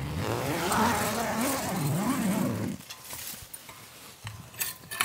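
Canvas tent's long door zipper pulled open in one continuous rasp whose pitch rises and falls with the speed of the pull, ending about three seconds in; a few faint clicks follow.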